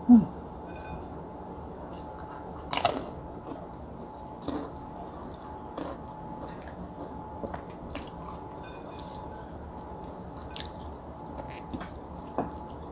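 Close-miked chewing and mouth sounds of a person eating, with scattered short smacks and clicks, the loudest about three seconds in.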